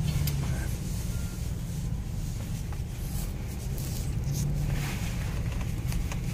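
BMW X6 engine running at low revs, heard from inside the cabin as the car drives slowly over a dirt track, over a low rumble. The engine note rises briefly about four seconds in, then settles.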